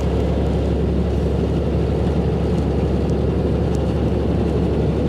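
Ford F-750 dump truck driving steadily at road speed, a low, even engine drone with tyre and road noise, heard from inside the cab.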